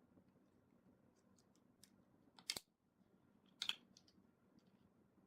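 Near silence with a few faint clicks of small accessories and packaging being handled: a pair of clicks about two and a half seconds in and another pair about a second later.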